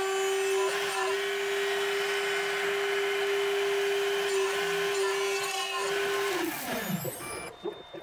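CNC milling machine's spindle running with a steady whine as it cuts 4140 alloy steel. About six and a half seconds in, the spindle winds down, its pitch falling, and the cutting noise stops.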